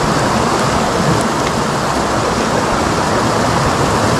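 Shallow stream rushing over rocks, a steady hiss of running water.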